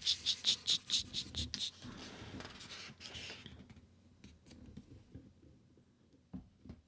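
Paper rustling: about eight quick scratchy strokes in the first second and a half, then a softer rustle fading out, with a few faint clicks near the end.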